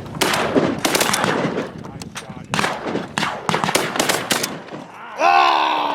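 Several hunters' shotguns firing a rapid, uneven string of shots at ducks overhead, the reports overlapping and echoing across the first four and a half seconds.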